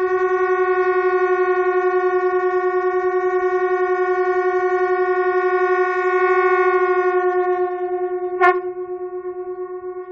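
Two conch shells blown at once by one player using circular breathing, holding one continuous low drone with a fast, even throb in it. It swells a little about six seconds in and eases after, and a sharp click cuts through it at about eight and a half seconds.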